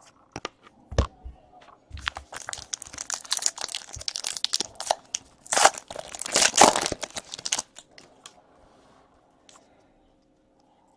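Foil trading-card pack wrapper being torn open and crinkled by hand: a dense crackle for about six seconds, loudest near the middle, after a single knock about a second in.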